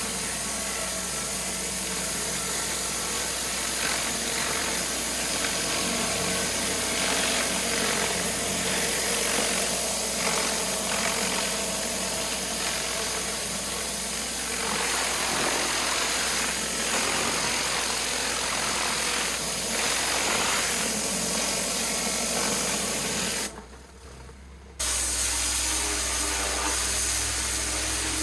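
Pressure washer running: a steady engine hum under the hiss of its water jet spraying the stone paving. The sound drops out for about a second near the end, then carries on.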